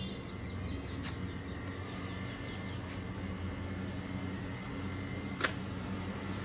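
A steady low hum in the background, with faint high chirps in the first two seconds and a single sharp click about five and a half seconds in.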